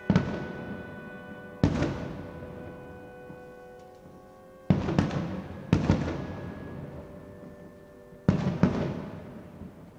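Aerial fireworks shells bursting: about seven sharp bangs, several in close pairs, each trailing off in a long rumble. Held chords of music sound underneath and fade out about halfway through.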